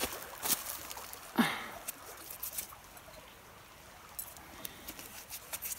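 Rustling and light crackling of leaves and woodland undergrowth being handled and brushed through, in short scattered clicks, with one brief sound that falls in pitch about a second and a half in. A stream trickles faintly underneath.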